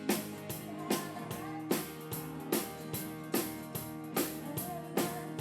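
Band music with a steady drum beat, guitar and bass.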